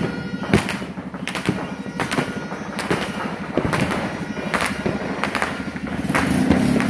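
Fireworks going off: about a dozen sharp bangs at irregular intervals. Near the end a steady low drone sets in beneath them.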